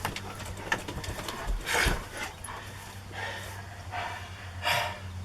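Dogs climbing up onto a trailer bed: a low thump just before two seconds in and a few short breathy huffs from the dogs, over a steady low hum.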